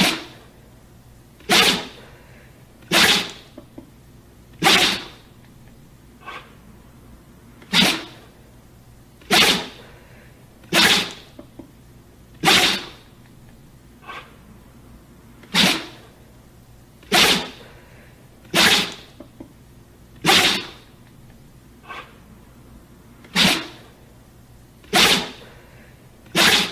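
A dog sneezing again and again, one short sharp sneeze about every second and a half. The same run repeats: one soft sneeze, then four loud ones.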